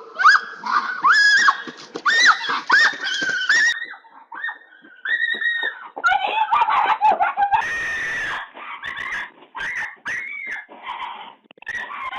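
Raccoons screeching: a rapid string of short, high squealing calls, each rising and falling in pitch, growing harsher and denser about halfway through.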